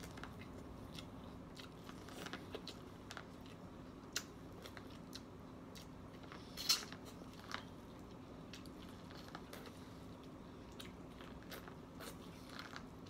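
Close-up eating sounds of a person biting kernels off a buttered, steamed corn cob and chewing: scattered crisp bites and wet mouth clicks, the loudest a bit over halfway through, over a faint steady hum.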